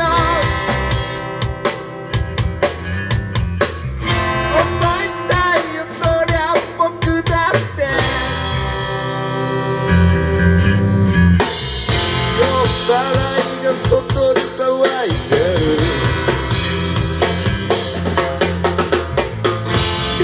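Live rock band playing an instrumental passage: two electric guitars with bending lead notes over a drum kit. About eight seconds in, the top end drops away for a few seconds, leaving drums and low notes, before the full band comes back in.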